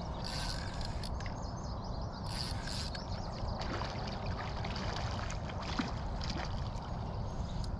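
Water splashing and sloshing in short bursts as a hooked fish thrashes at the surface close in and a man wades with a landing net, over a steady low rumble.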